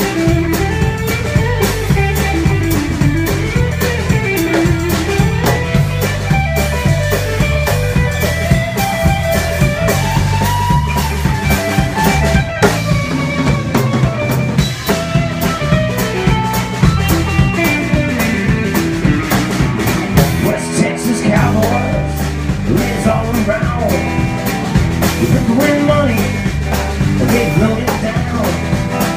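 Live band playing: electric bass loud and close, with a drum kit and electric guitar.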